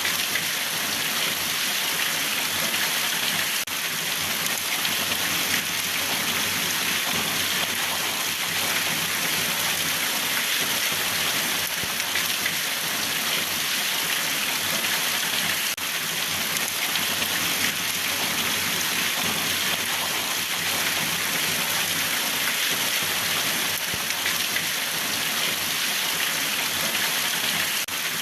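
Steady rainfall, a dense even hiss of drops falling on a surface.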